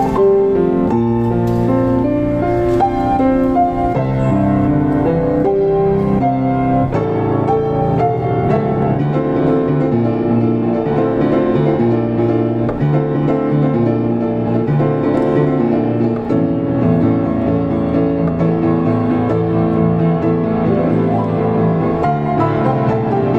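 Diapason grand piano played solo: a busy arrangement with a steady stream of quick notes and a moving bass line, without pause.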